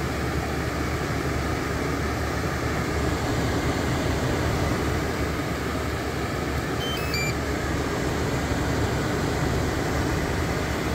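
Blower fan of a GCFIX 24V air-conditioner unit running with a steady rush of air, and a short run of beeps from its control panel about seven seconds in as the unit is switched off. The fan keeps running after the panel goes dark, the fault of a fan that will not turn off.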